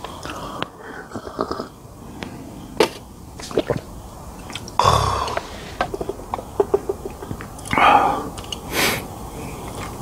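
A person eating close to the microphone: chewing with scattered lip-smacking clicks, and two louder breathy bursts about five and eight seconds in.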